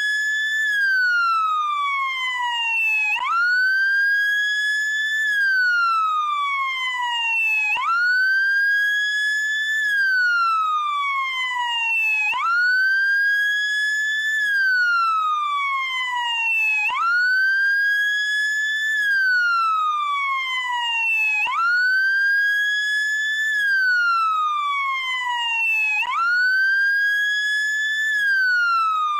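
Electronic wail siren of a SAMU ambulance motorcycle (motolância). The tone rises quickly, then glides slowly down, and repeats this cycle about every four and a half seconds.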